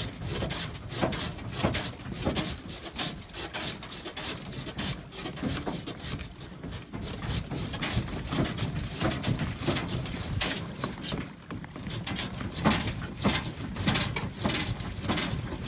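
Footsteps on the planks of a wooden dock: a quick, irregular run of knocks and scuffs, with rubbing noise close to the microphone.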